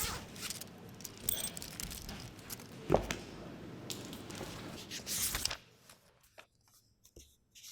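Classroom foley: rustling, crinkling and shuffling noise, cut through by a single sharp hand clap about three seconds in. From about two seconds before the end it falls to near silence with a few faint clicks, the hush that follows the clap.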